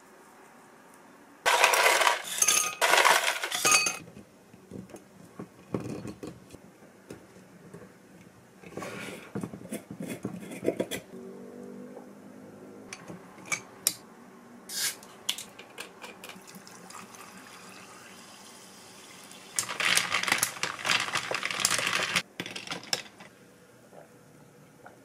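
Glassware and ice clinking in several short loud bursts of handling, with lemon syrup poured from a glass jar into a tall glass of ice about halfway through.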